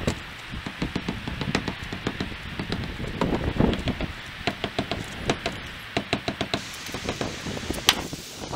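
A hammer tapping on a drift held against a Classic Mini's painted seam strip, knocking the strip down onto the roof seam. The light taps come in quick, irregular runs of several a second, with one sharper tap near the end.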